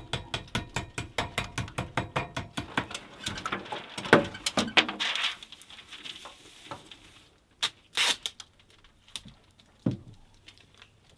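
Hands-on work with housewrap and window flashing: a fast, even run of sharp clicks, about four a second, for the first four seconds, then a few louder knocks and rustles and scattered short noises.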